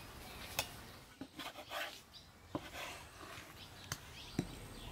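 Kitchen knife knocking on a wooden cutting board as raw meat is cut into chunks: four sharp, unevenly spaced knocks.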